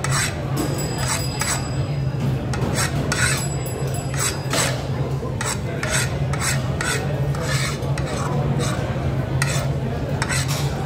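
Irregular rasping, scraping and rubbing strokes, repeated many times, over a steady low hum.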